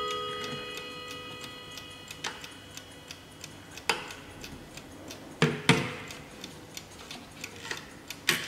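Hermle mantel clock ticking steadily. The ringing of its chime bars dies away over the first couple of seconds, and a few louder clicks come from the movement along the way.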